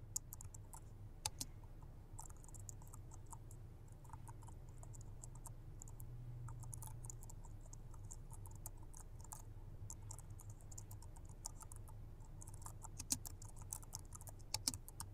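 Faint typing on a laptop keyboard: irregular soft key clicks with a few sharper taps about a second in and again near the end, over a steady low hum.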